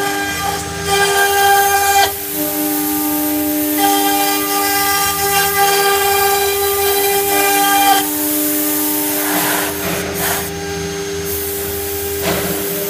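CNC router spindle running with a steady high whine as its bit cuts 4 mm flat fibreglass sheet, over a hissing cutting noise. The tone shifts slightly a few times.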